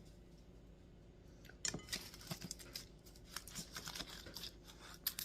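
Faint clicks, scrapes and light rustling of food being handled and served with utensils on plates, starting about a second and a half in.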